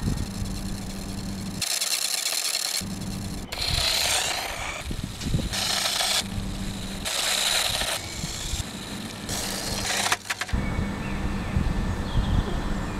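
A toy radio-controlled car running on rough tarmac. Its motor and tyres come through as several separate hissing bursts, each about a second long, with a low rumbling hum between them.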